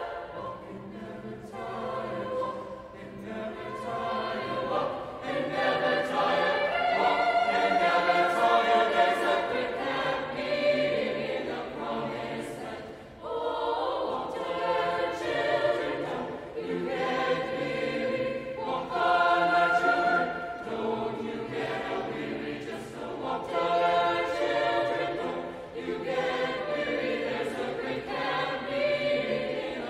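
High school mixed-voice choir singing in harmony, with sustained chords and a brief breath between phrases about thirteen seconds in.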